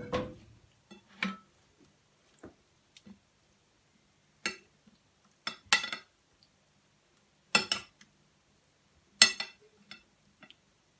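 Metal spoon clinking and scraping against a white serving dish as minced-meat filling is spread and pressed down, in sharp knocks one to two seconds apart, the loudest three in the second half.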